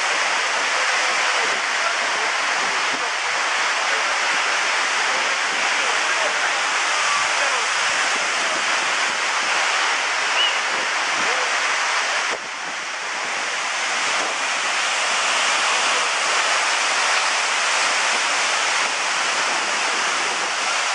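Waterfall, a steady rush of falling water. The level drops abruptly about twelve seconds in, then builds back up.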